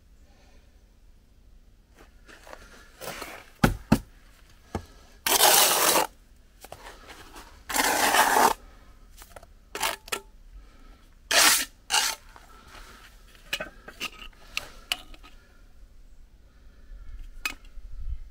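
Steel brick trowel scraping and spreading mortar on top of concrete blocks, with two longer scrapes and several shorter ones, and sharp knocks and taps of the trowel against the blocks.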